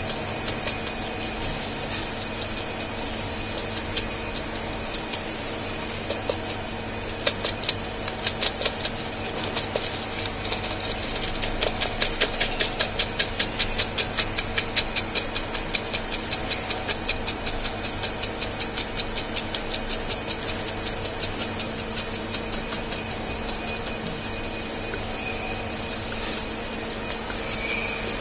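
Drilling machine running steadily while it feeds a burnishing tool down through a 125 mm bore. A rapid, regular ticking of about three to four a second comes and goes over the hum and is clearest in the middle.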